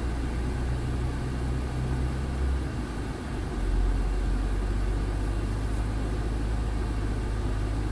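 Heavy truck's diesel engine heard from inside the cab, a steady low drone as it pulls slowly through snow. About three seconds in the drone dips briefly, then picks up again louder.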